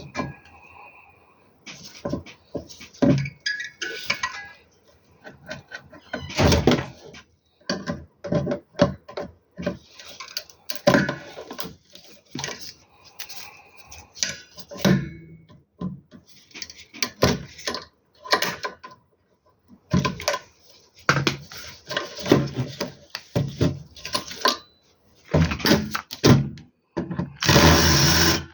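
Irregular clicks, knocks and rattles of tools and metal parts as a solar inverter is taken apart, with a power screwdriver running for about a second near the end.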